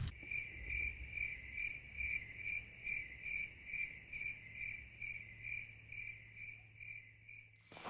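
A cricket chirping steadily, about two and a half short chirps a second, stopping shortly before the end.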